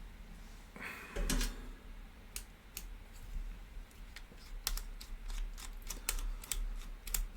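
Irregular light clicks and taps of hands and a screwdriver working at the toaster's plug or fuse holder to get the fuse out for checking, with a short scrape about a second in.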